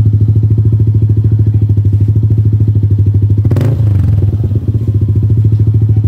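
A Yamaha Aerox 155's single-cylinder engine idles steadily through an aftermarket HGM muffler, with a deep, even exhaust pulse. A single sharp knock comes about three and a half seconds in.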